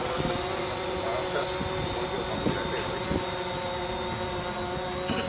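Multirotor drone flying, its propellers giving a steady, even hum with several fixed pitches, over a low rumble.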